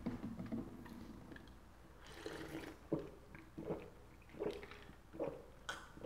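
A person drinking fizzy pineapple soda from a glass jar mug: a slurping sip about two seconds in, then a run of gulps, one roughly every three-quarters of a second.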